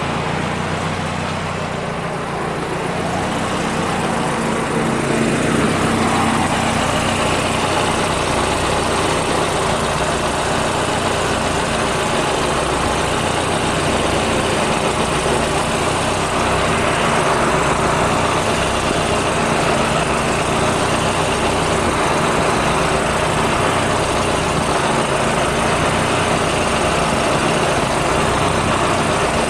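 Subaru GRF's turbocharged flat-four idling steadily, a little louder from about five seconds in. Its HKS exhaust manifold is leaking exhaust.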